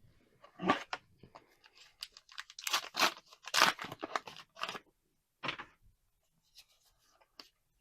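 Foil booster pack wrapper being torn open and crinkled by hand, in several loud ripping, rustling bursts.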